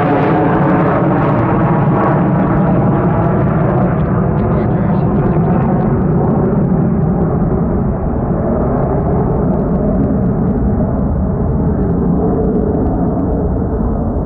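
Jet noise from a Boeing 727-200's three Pratt & Whitney JT8D low-bypass turbofans at climb power after takeoff. It is loud and steady, and its higher hiss slowly fades as the airliner climbs away.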